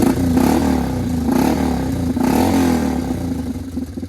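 Four-wheeler (ATV) engine revved from idle about three times, each rev rising and falling back, then settling to idle near the end. The exhaust's leaking header joint has just been clamped tight with a hose clamp, and the owner judges the leak better though not fully cured.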